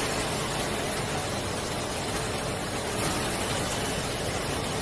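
Steady machine hum and hiss from a banana chips frying line running, with no distinct knocks or changes.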